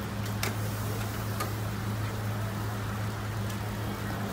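Steady low electrical hum with a few sharp clicks and taps as the metal wafer irons and a batter ladle are worked.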